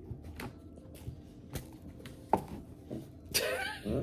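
A few light clicks and taps, the sharpest a little past halfway, then near the end a hungry, annoyed house cat starts another meow.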